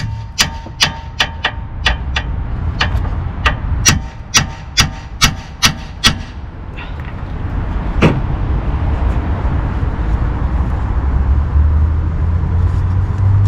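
Hammer striking metal on a Lada Vesta's front suspension: a quick run of sharp, ringing blows, about two a second for some six seconds, then a single blow a couple of seconds later. A steady low rumble sits underneath.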